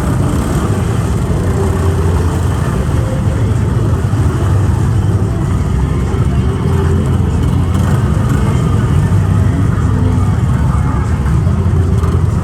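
Lifted ATV engine running hard, its pitch rising and falling a little as it is revved.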